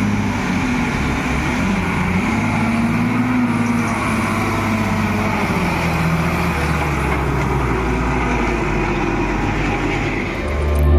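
Heavy diesel engine of earth-moving machinery running steadily, its pitch wavering a little in the first few seconds as the load changes.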